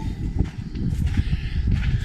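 Footsteps on the ground with a low rumble of wind on the microphone.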